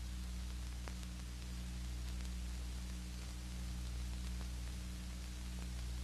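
Steady hiss and low hum of an old film soundtrack, with a few faint clicks.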